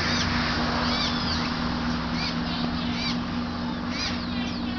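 Red-crested cardinal fledgling begging to be fed: a string of short, high, arched chirps at irregular intervals, over a steady low hum.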